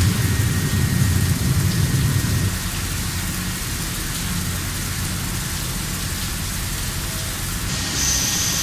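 WFL M60 MillTurn machine cutting a crankshaft: a steady, rain-like hiss over a low rumble that eases about two and a half seconds in. A high whine comes in near the end.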